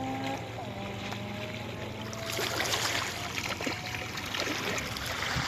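Hooked barracuda thrashing at the water's surface, a rough irregular splashing that starts about two seconds in and grows louder.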